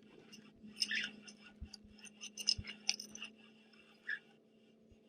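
Faint, irregular clicks and ticks from a fishing reel and tackle while a hooked fish is being reeled in, over a faint steady hum. The clicks thin out after about three seconds.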